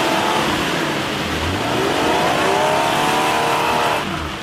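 Off-road 4x4 SUV engine revving hard as its wheels spin through deep mud, the pitch climbing twice. The engine sound drops away near the end.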